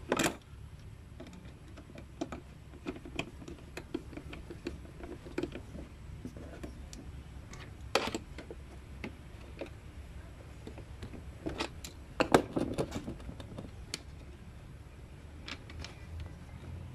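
Small irregular clicks and taps of a hand screwdriver and screw working against a plastic fog light bracket and bumper as a screw is turned in. A few sharper knocks come right at the start, about eight seconds in, and in a cluster around twelve seconds, over a low steady hum.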